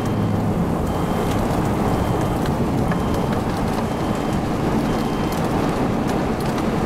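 Steady rushing wind and rain of a severe thunderstorm, with scattered sharp ticks of drops striking.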